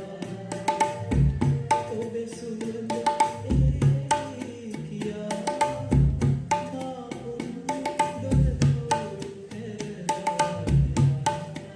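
A tabla pair played in a steady repeating rhythm cycle: quick, ringing strokes on the right-hand dayan, with a deep bass stroke on the left-hand bayan about every two and a half seconds.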